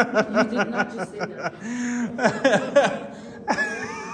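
People laughing: a quick run of short ha-ha bursts, a brief held note partway through, then more laughs that die down near the end.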